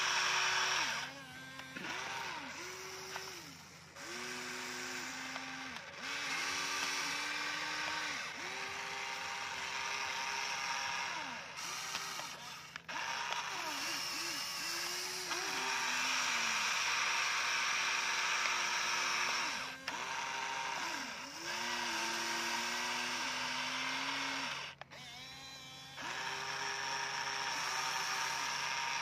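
Huina radio-controlled toy excavator's electric motors whining as the boom, arm and bucket are worked. The pitch steps up and down and cuts in and out every second or two, over a steady hiss.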